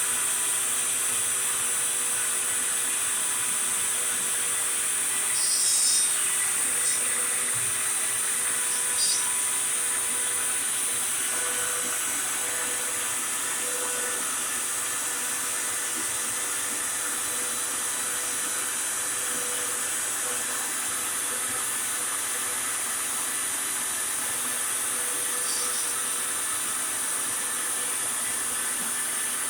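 CNC router spindle whining steadily while the bit carves a wooden board, over the steady rush of a dust vacuum. The cutting gets briefly louder about 6 and 9 seconds in.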